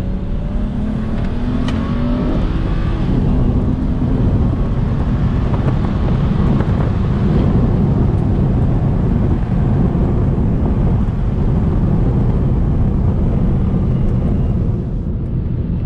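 BMW 335i's twin-turbo N54 inline-six, running full bolt-ons at about 17–18 psi of boost, pulling hard under acceleration. Its note rises in pitch over the first couple of seconds and then turns into a loud, steady rush of engine and road noise, which eases off near the end.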